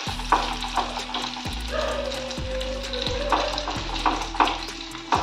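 Beaten egg sizzling as it fries in hot vegetable oil in a frying pan, with a flatbread pressed down on top of it and light spatula scrapes. Background music with a steady beat plays underneath.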